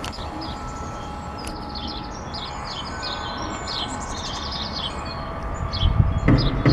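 Several small birds chirping in quick, repeated short calls over a steady low background rumble. Near the end a louder low rumble rises under the chirps.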